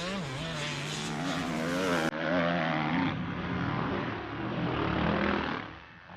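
Dirt bike engines revving, their pitch rising and falling as the throttle opens and closes, fading briefly near the end.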